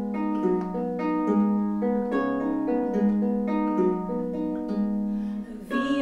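Small acoustic guitar being fingerpicked, playing an instrumental introduction of single notes and arpeggiated chords that ring on. There is a short break near the end before the playing picks up again.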